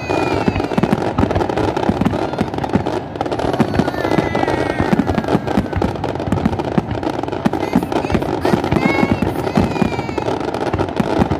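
Aerial fireworks going off in quick succession: a dense, unbroken stream of bangs and crackles.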